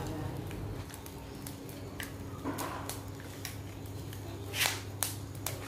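Light clicks and scrapes of shells and a grilled filefish being turned and lifted on a wire grill rack over a charcoal stove with wooden chopsticks, over a steady low hum. A louder scrape comes near the end.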